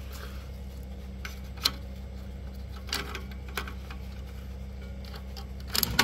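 Small sharp clicks and taps from hands working at an air conditioner's fused disconnect box, over a steady low hum. There are about four separate clicks; the loudest comes a little under two seconds in and a quick cluster comes near the end.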